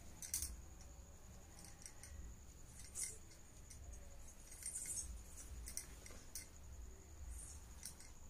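Faint, scattered light clicks and small ticks, about a dozen, irregularly spaced over a low steady hum.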